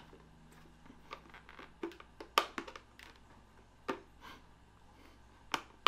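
Scattered light clicks and taps of hard plastic as a visor is lined up on a motorcycle helmet's side mounts and pressed into place, the loudest about two and a half seconds in.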